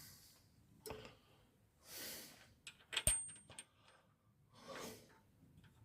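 Small metal clicks and a sharp clink with a brief high ring about three seconds in, as a nut is fitted onto the end of a Land Rover steering damper. A couple of soft breaths between them.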